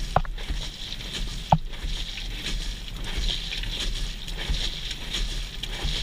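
Inside the drum of a direct-drive front-loading washing machine during a wash: wet laundry tumbling and water sloshing over a steady machine hum, with two sharp knocks, one just after the start and one about a second and a half in.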